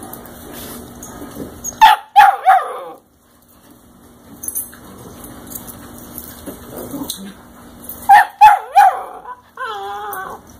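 Seven-week-old puppies yipping: a quick run of three high, sharp barks about two seconds in, another run of three near the end, then a longer wavering whine.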